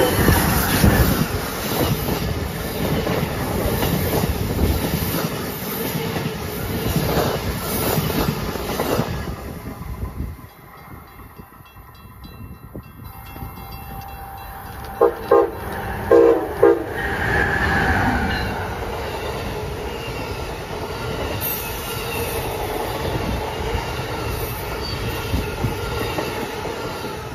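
An Amtrak train led by an ACS-64 electric locomotive sounds its horn and rushes past at speed, wheels and cars running loud for about ten seconds before it fades away. About fifteen seconds in a train horn gives a quick series of short blasts, and another Amtrak train of coaches then comes up and passes, its noise building toward the end.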